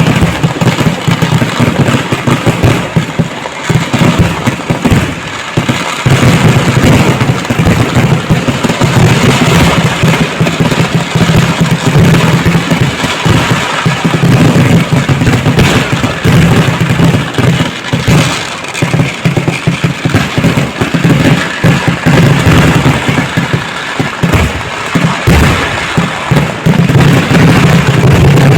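Vedikettu fireworks barrage: a dense, unbroken run of firecracker bangs going off in rapid succession, many overlapping.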